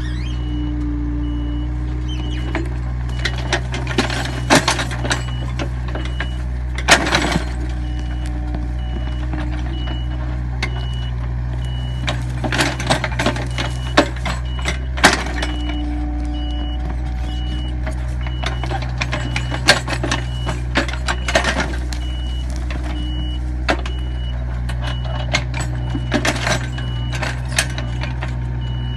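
Takeuchi excavator's engine running steadily, with its warning alarm beeping at an even rate and scattered sharp knocks and clanks from the machine working.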